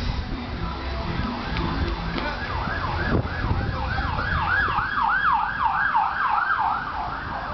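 A warbling siren, its pitch sweeping up and down about three times a second. It comes in about two seconds in, grows louder, and stops just before the end, over a steady low rumble.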